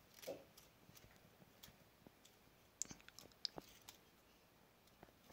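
Faint, scattered small clicks and crackles from a soil moisture sensor's metal fork probe being pushed by hand into potting soil, with a few sharper clicks about three seconds in.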